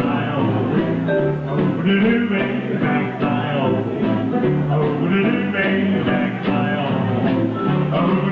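Live band playing a rock and roll number, with guitar and a moving bass line.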